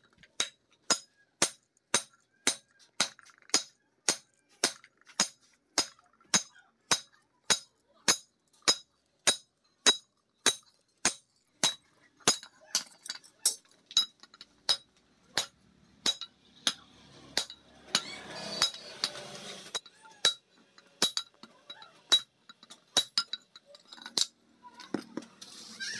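Hand hammer striking a steel meat-cleaver blade on an anvil during forging: regular ringing blows about two a second, becoming weaker and more widely spaced after about twelve seconds.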